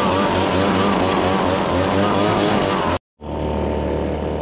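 Backpack leaf blower running at speed, its engine pitch wavering, until it cuts off suddenly about three seconds in; a steady low engine hum follows.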